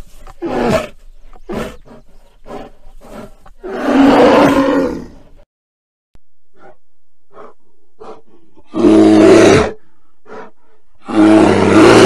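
Grizzly bear vocalising: a string of short grunts and huffs, then a long roar about four seconds in, and two more loud roars near the end.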